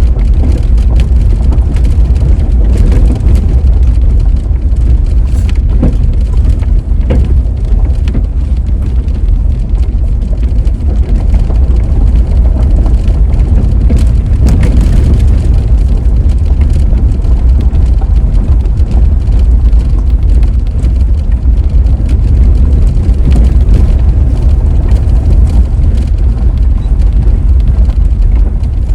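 Steady low rumble of a vehicle driving: road and engine noise.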